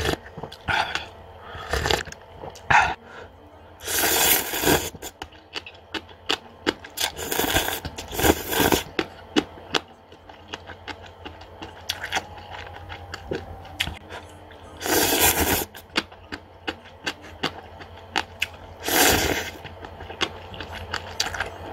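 A person slurping instant cup ramen noodles and broth: several loud slurps of up to about a second each, with chewing and short clicks between them.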